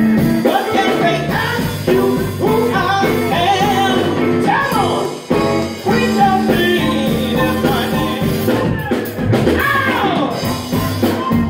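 Live blues band playing, with a singer's voice wavering over the instruments.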